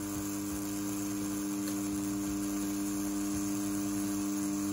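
CNC T4 rotary tattoo pen running at about 7 volts with a 5-round liner needle, giving a steady electric hum while it pulls a line.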